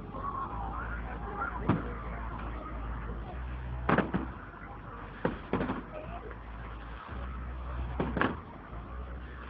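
Fireworks bursting overhead: about five or six sharp bangs at irregular intervals, over the chatter of a crowd.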